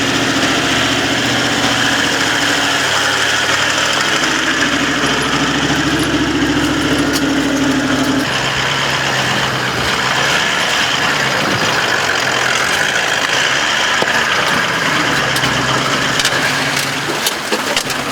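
A 4WD vehicle's engine running steadily, with a low, even hum that changes character about eight seconds in.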